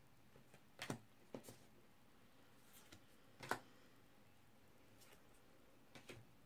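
Near silence with a few faint, short clicks and taps of oracle cards being handled, the loudest about three and a half seconds in.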